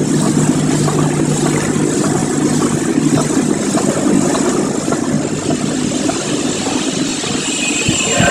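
Rice packaging machinery running: a loud, steady mechanical noise with a low hum that fades out about three and a half seconds in, and high steady tones coming in near the end.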